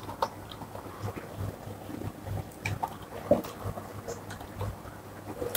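A few faint computer keyboard clicks, scattered and irregular, over a low steady hum of background noise.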